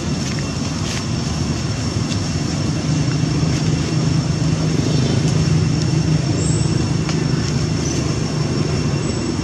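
Steady low mechanical hum, like a vehicle engine running, over constant outdoor background noise; the hum sets in about three seconds in and fades near the end.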